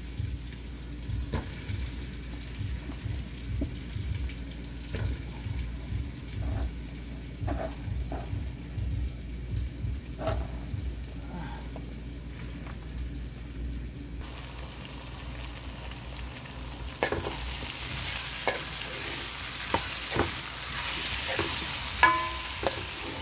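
A few light knocks and handling sounds, then about two-thirds of the way through a louder sizzle as potato pieces go into hot oil with curry paste. A spoon stirs and scrapes through the frying pan near the end, with sharp clicks.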